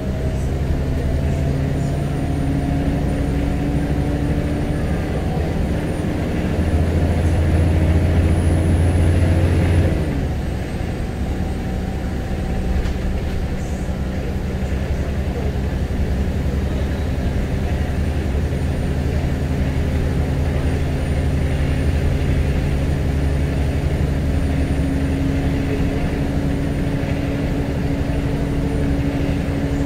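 Scania L94UB Wright Solar bus's nine-litre five-cylinder diesel heard from inside the saloon, pulling and slowly rising in pitch, then dropping in pitch sharply about ten seconds in and running on steadily at the lower note. A faint high whine rises and falls with it.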